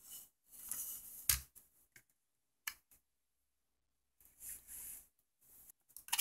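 Handling noise from the opened TI-83 Plus: the plastic case halves and the foil-and-paper shield sheet over the main board are rustled and shifted, with a few sharp clicks, the loudest about a second in.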